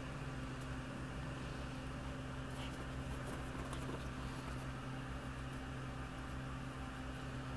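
Steady low hum from a room appliance or fan, with faint brief rustles of a dog moving on a bed comforter a few seconds in.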